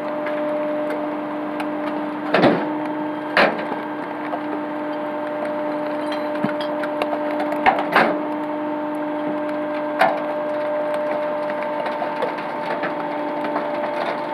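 Rear-loader garbage truck's hydraulic packer cycling: a steady hum from the truck's pump and engine, broken by about five loud, sharp cracks and creaks as the packer panel comes down over the load.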